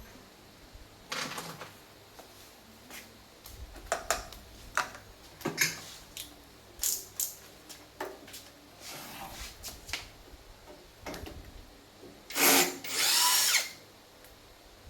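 Scattered clicks and knocks of tools being handled, then a small handheld power tool run in two short bursts near the end, the second with a whine that rises and falls in pitch.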